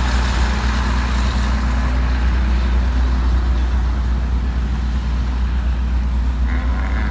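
Steady low hum of an idling engine, with a constant wash of outdoor noise over it.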